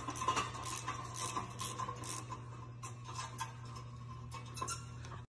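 Hand ratchet wrench clicking in quick, irregular runs as a bolt under a car is worked, the clicks thinning out in the second half. A steady low hum runs behind.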